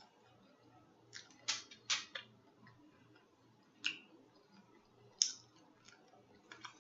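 Mouth smacking while eating: short, sharp, wet smacks, a quick cluster of three or four about a second in, then single ones spaced out toward the end.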